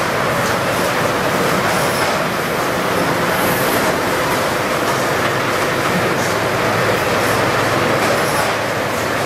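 Production-line machinery running steadily: a conveyor carrying trays along, with a continuous mechanical clatter and faint clicks.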